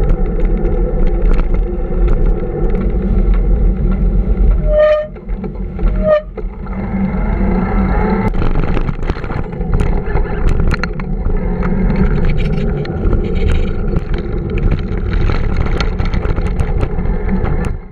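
Steady rush of wind on the microphone and street traffic heard from a moving bicycle, with two short beeps about five and six seconds in and scattered clicks and knocks through the second half.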